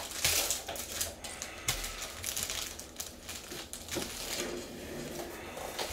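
Foil trading-card pack crinkling as it is torn open by gloved hands, loudest in the first second, followed by light rustles and clicks of the cards being handled.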